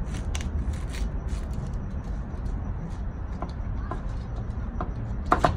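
Chef's knife cutting through a half head of garlic and knocking against a plastic cutting board: a quick run of sharp clicks in the first second or so, then a few scattered taps, over a steady low background rumble. A brief louder sound comes just before the end.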